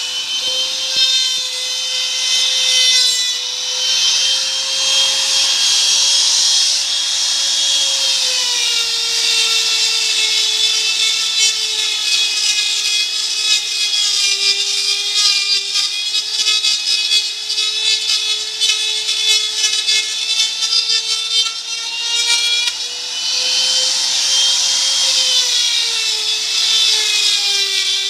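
Electric wood router motor running at high speed and cutting wood: a steady high whine over the hiss of the cut. Its pitch sags a little about eight seconds in, as if the bit has been put under load, stays lower, then rises and sags again near the end.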